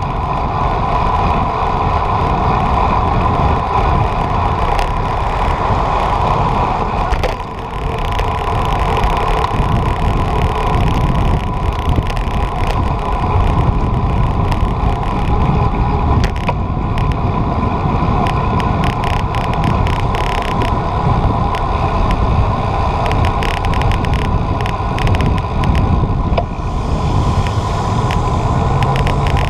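Wind rushing and buffeting over the microphone of a moving ride, with a low road rumble and a steady hum underneath; brief crackles from the wind come and go.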